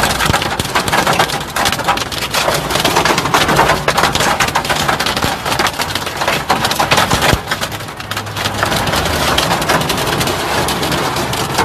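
Hail and heavy rain pelting the windscreen and roof of a moving car, heard from inside the cabin as a dense, unbroken patter of hard impacts.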